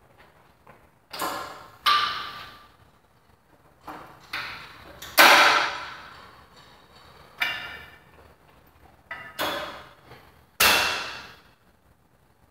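Metal weight plates and hardware of a cable crossover machine clanking: about nine sharp metallic clanks at irregular intervals, each ringing briefly before it fades.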